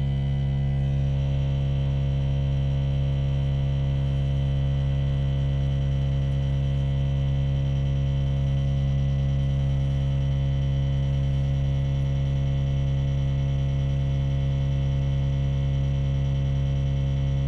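ARB CKMA12 12-volt onboard air compressor running with a steady hum while inflating a tire, the pressure climbing through the low-to-mid 20s psi.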